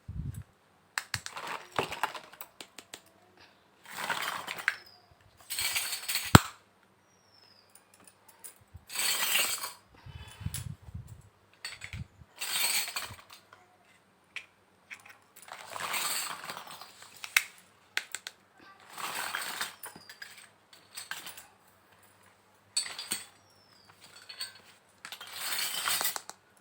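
Handling of miniature toy kitchen pieces: short rustling scrapes and small clinks of tiny plastic and glass-like parts, coming in bursts every few seconds with quiet gaps between. A faint, short high chirp recurs now and then.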